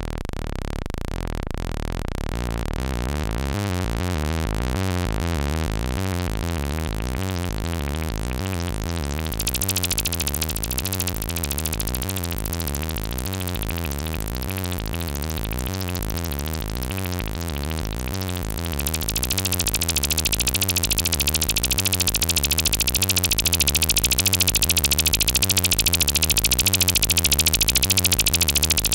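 Electronic music with a steady, looping synthesizer pattern. A layer of hiss-like noise comes in about nine seconds in, and the music gets louder at about nineteen seconds.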